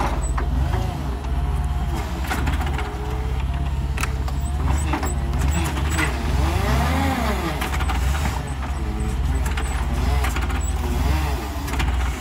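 Forklift engine running while the truck is driven and steered, heard from the driver's seat: a steady low drone with scattered knocks and rattles, and a rise and fall in pitch about halfway through.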